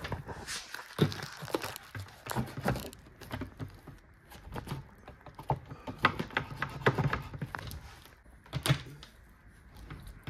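Hand work on a wooden dog house: irregular knocks, taps and rustling as pieces are handled and fitted, with louder knocks about a second in and again near the end.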